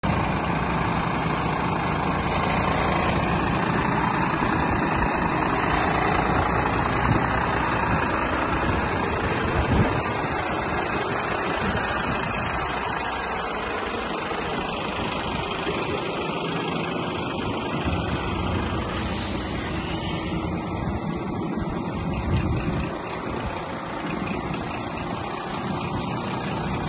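Volvo FM420 tractor unit's 13-litre six-cylinder diesel idling steadily, with a brief hiss about two-thirds of the way through.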